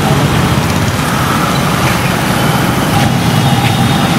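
Steady street traffic noise: a continuous low rumble of vehicle engines passing on a wet road.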